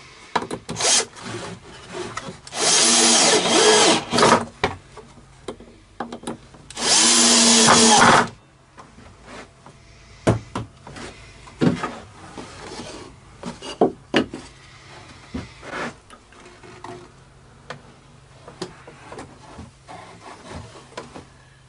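Cordless drill running in two bursts of about a second and a half each, driving screws through the dust hood into the wood, followed by scattered light knocks and clicks of handling.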